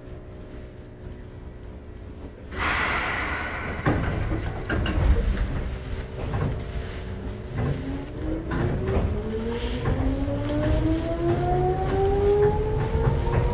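Seibu 2000-series field-chopper electric train pulling away from a station: a sudden hiss about two and a half seconds in, then wheels knocking over rail joints and a traction-motor whine that rises steadily in pitch as the train accelerates from about seven seconds in.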